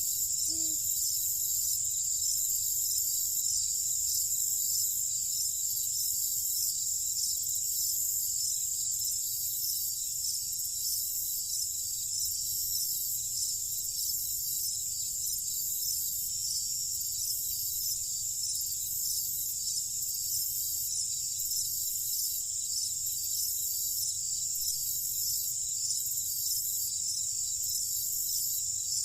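Night insect chorus of crickets, a dense, steady, high-pitched trilling, over a low steady rumble. A couple of short, low, pitched calls sound in the first second.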